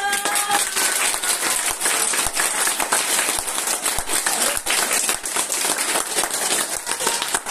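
Audience applauding: a room full of people clapping, starting suddenly and keeping up a dense, even clatter. A short high call rings out at the very start.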